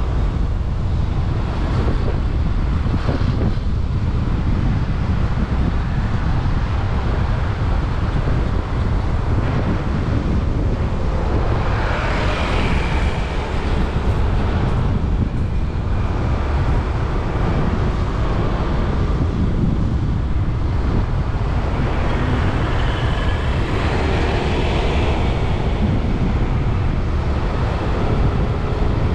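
Wind rumbling on the microphone over road traffic on wet pavement in heavy rain. Vehicles swell past about twelve seconds in and again about twenty-four seconds in.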